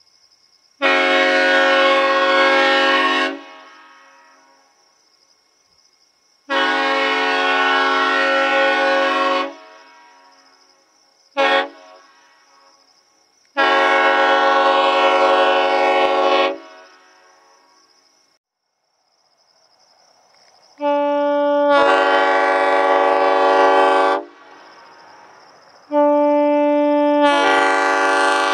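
Nathan Airchime M5 five-chime air horn (M5R24) sounding its chord in five long blasts of about three seconds each and one short toot, each blast trailing off in a fading tail. Insects chirp faintly between the blasts.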